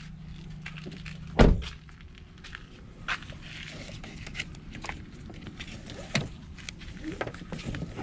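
An SUV door shut with a heavy thud about a second and a half in, followed by scattered light clicks and knocks of gear being handled at the car's roof.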